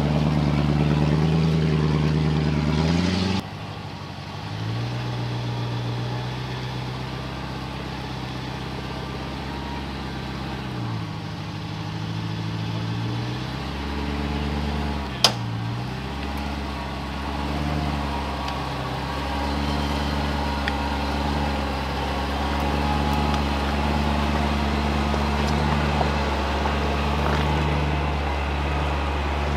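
Land Rover Discovery V8 engine revving up and down in short blips as the truck crawls over rocks. There is a single sharp knock about halfway through.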